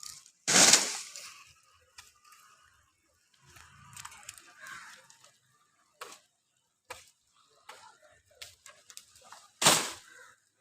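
Two loud, sharp cracks, one about half a second in and one near the end, with lighter knocks and clicks between them, from the cutting of a coconut tree.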